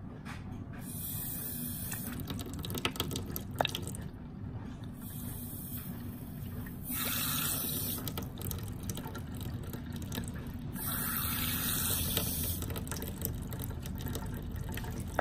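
Water rushing through the rim and siphon jet of a 3D-printed miniature toilet as it is flushed, in three surges, with the bowl filling and draining; a few sharp clicks come about three seconds in. Its rim and large siphon jet put out more water than the little bowl can handle, giving a weak siphon.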